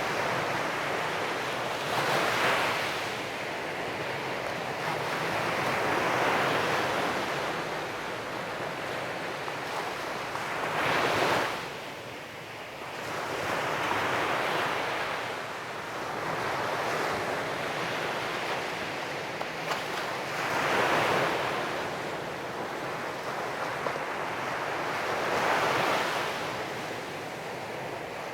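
Sea waves breaking and washing up a beach, each wave swelling and fading in turn, about seven in all, one every four seconds or so.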